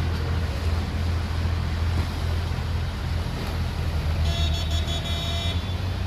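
Motor launch engine running with a steady low drone and water noise. A brief pitched toot sounds about four seconds in and lasts just over a second.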